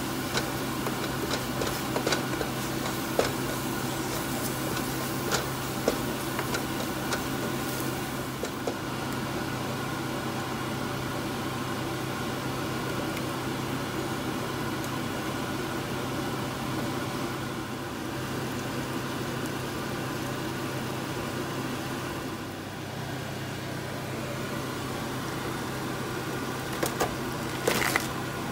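A wooden spoon stirs curry in a metal pot, knocking and scraping against it now and then during the first several seconds, over a steady low hum. Near the end, crab pieces are tipped from a plastic bowl into the pot with a short clatter.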